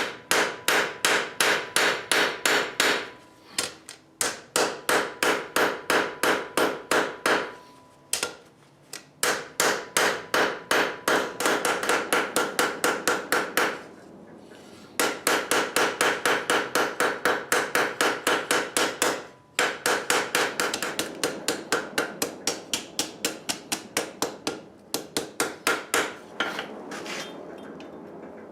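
Blacksmith's hand hammer striking hot steel on an anvil, forging the spoon bar, in quick runs of about three to four blows a second with short pauses between runs. The blows grow lighter near the end and stop shortly before it.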